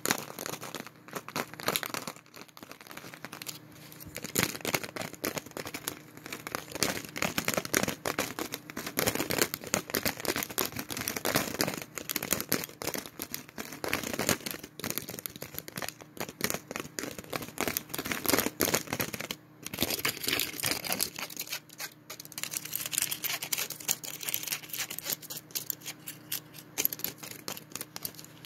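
Gum packaging of foil and plastic being crinkled and handled in close-up, in dense, irregular crackles. There is a brief pause about two-thirds of the way through.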